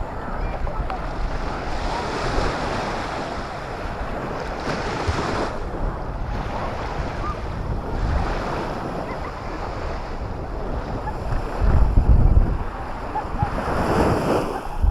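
Black Sea surf washing onto the beach, with wind buffeting the microphone in low rumbling gusts, strongest about twelve seconds in.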